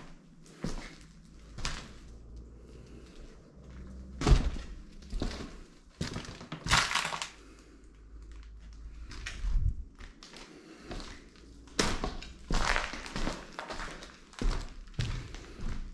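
Footsteps crunching over debris, with irregular thuds and one loud knock about four seconds in.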